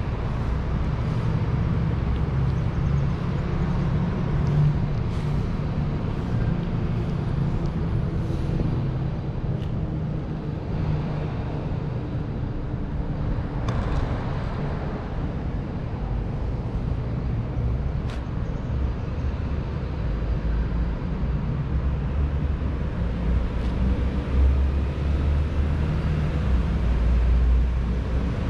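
Steady low rumble of road traffic, growing heavier in the second half.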